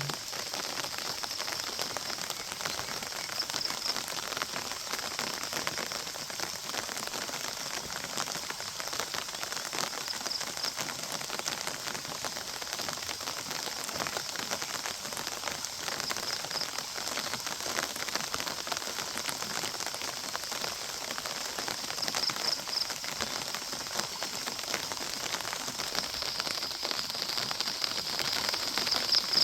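Steady rain falling, a dense patter of drops, with a steady high hum above it that swells briefly now and then.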